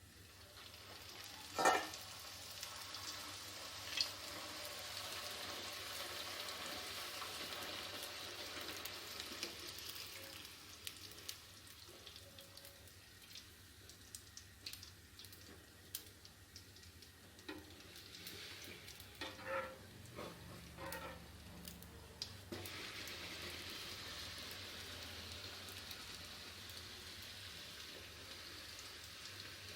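Chola poori (bhatura) dough deep-frying in hot oil: a steady sizzle that eases off in the middle and picks up again about two-thirds of the way through. A few sharp knocks sound near the start and in the middle.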